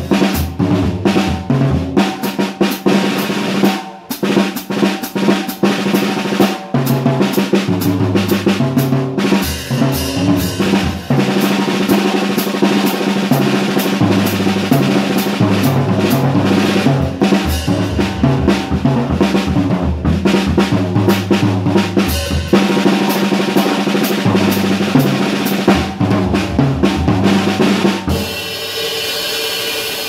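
Jazz drum kit played by hand with sticks: dense strokes on snare, bass drum, toms and cymbals, a jazz drum transcription played through. The playing stops about two seconds before the end, leaving the cymbals ringing out and fading.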